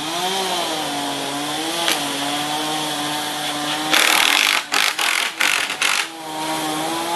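Cordless drill driving screws through thatch rails: a steady motor whine that dips and rises slightly. About four seconds in there is a loud harsh burst and a few short bursts, and the whine comes back near the end.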